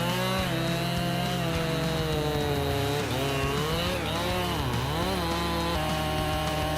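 Chainsaw running at high revs. Its pitch sags and recovers about three seconds in and again around four to five seconds, then holds steady near the end.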